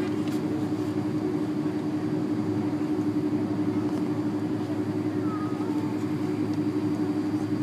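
Jet airliner cabin noise while taxiing: the engines run at idle with a steady hum over an even rumble.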